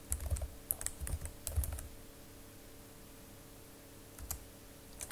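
Computer keyboard being typed on: a quick run of keystrokes for about two seconds, then a single click about four seconds in.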